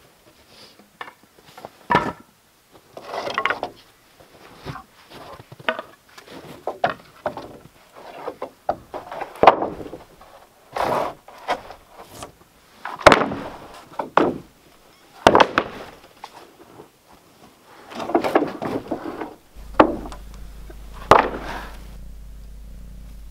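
Sawn wooden boards knocking and clattering as they are lifted and laid down on a stack, with short scraping slides of board on board between the knocks. Near the end a cat's steady purr comes in underneath.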